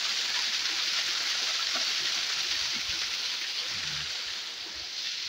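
Small waterfall splashing down a rock face: a steady rushing spray of water, growing a little fainter toward the end.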